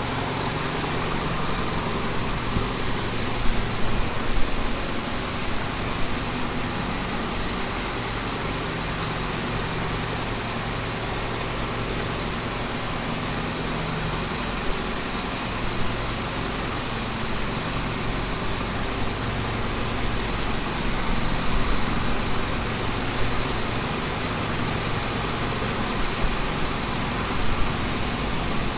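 A vehicle engine running steadily under load as it tows a non-running spray truck out on a chain.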